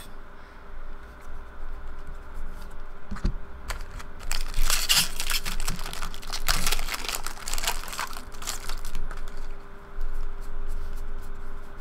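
Hands handling trading cards and a foil card-pack wrapper: light clicking of cards being flipped, then about four seconds in, a dense run of crinkling and tearing as the foil pack is handled and opened, easing back to card clicking near the end.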